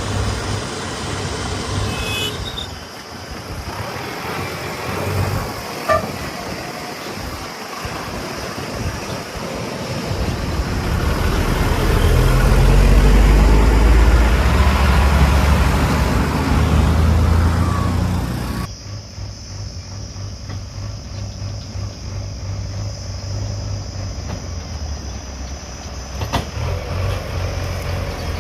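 Heavy diesel engines of machines at work. One swells into a louder, heavier run for several seconds, rising in pitch as it comes under load. After a sudden change it drops back to a steady idle hum.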